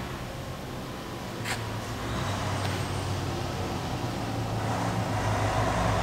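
A motor vehicle's engine running and growing louder, with a deeper rumble building near the end. A single sharp click about a second and a half in.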